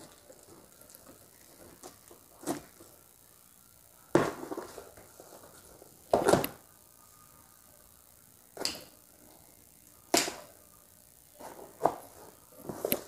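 A cardboard box being opened by hand: short tearing and rustling sounds of cardboard and packing tape, about seven of them every second or two, with quiet between.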